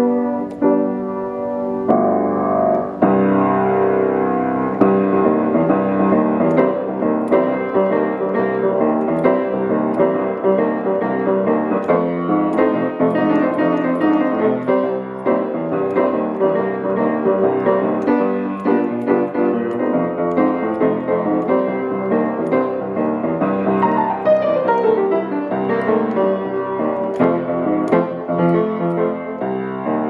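Grand piano played solo in a blues and boogie-woogie style, with continuous two-handed playing and a quick run down the keys about three-quarters of the way through. The player says the piano needs some tuning.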